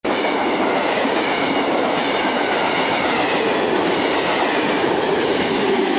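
Loud, steady mechanical noise with faint high tones above it, starting abruptly out of silence.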